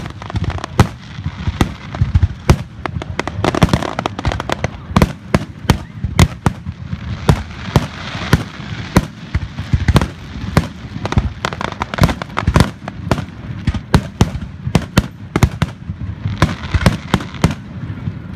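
Fireworks display: aerial shells bursting overhead in a fast, irregular run of sharp bangs, several a second.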